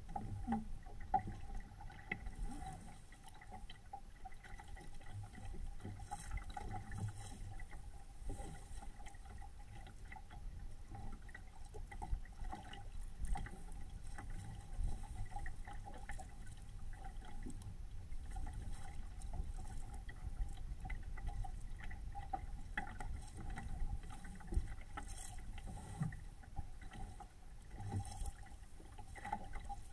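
Water sloshing and lapping against the hull of a small SCAMP sailboat under way, with a low wind rumble on the microphone. A faint steady whine runs throughout.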